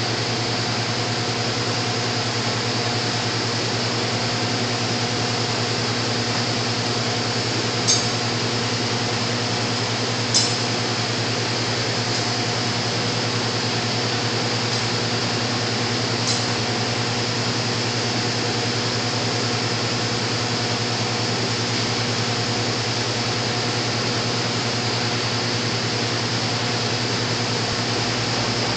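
Steady mechanical hum holding one even pitch with a high hiss over it, broken only by a few faint clicks.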